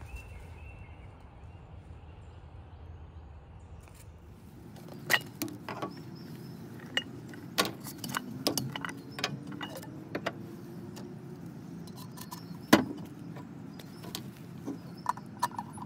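Low steady background rumble, then a run of sharp clicks, knocks and clatter as a Jetboil camp stove is taken apart and put together on a tabletop: the plastic lid, bowl and stand and the cup handled and set down, and the fuel canister fitted. One knock, about four-fifths of the way through, is much louder than the rest.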